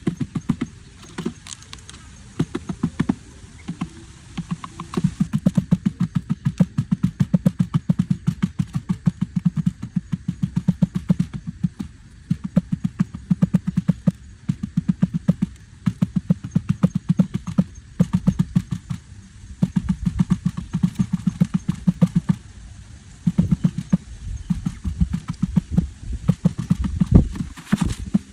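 Rapid series of dull taps, several a second, in bursts of a few seconds broken by short pauses.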